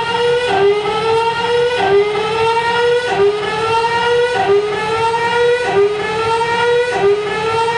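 Emergency alert system alarm tone: a loud, buzzy electronic tone that slides up in pitch over about a second, drops back and starts again, repeating about every 1.2 seconds.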